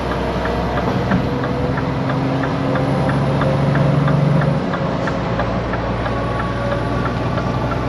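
Scania truck's diesel engine running at cruising speed on a motorway, heard inside the cab over road and tyre noise. Its steady drone swells a little about four seconds in, then drops back, with a faint regular ticking throughout.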